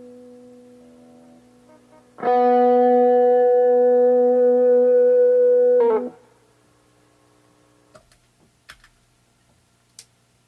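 Fernandes FR-75-3S electric guitar: a fading note, then a single note struck about two seconds in and held at an even level for about four seconds before it is cut off abruptly, with a few faint clicks after.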